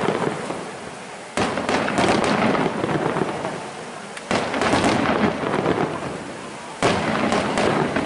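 Aerial firework shells bursting: three sudden loud booms, about a second and a half in, just past four seconds and near seven seconds, each followed by a dense crackle and rumble that dies away over a couple of seconds.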